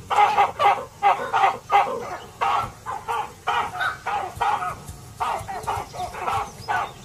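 Baboon troop calling in alarm at a leopard: a rapid, overlapping run of short barks and screams, about three calls a second.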